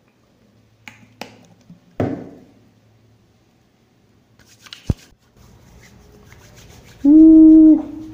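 Hands being rubbed with alcohol hand sanitizer. A few sharp clicks and a thump come first, then a steady soft rubbing. Near the end there is a loud, short, steady-pitched hum lasting under a second.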